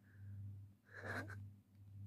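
Newborn puppies breathing faintly in sleep, in soft regular pulses, with one short snuffling breath about a second in.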